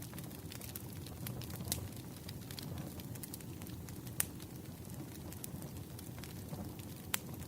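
Wood fire crackling: irregular sharp pops and snaps over a low, steady rumble, with a few louder pops scattered through.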